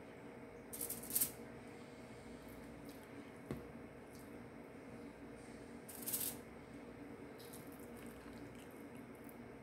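Kitchen handling noises while ground turkey patties are shaped on a foil-lined pan: two short rustles, about a second in and about six seconds in, and a light click between them, over a steady low hum.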